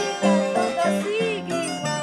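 Andean harp being plucked, a melody over low bass notes in a steady pulse about twice a second. A woman's singing voice, with a wavering held note, joins the harp about halfway through.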